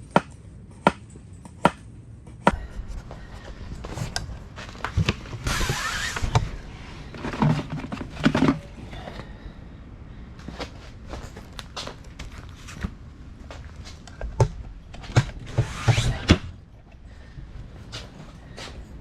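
Knife chopping food on a cutting board: three sharp chops in the first two seconds, then scattered knocks and thuds, with two stretches of rustling about six and sixteen seconds in.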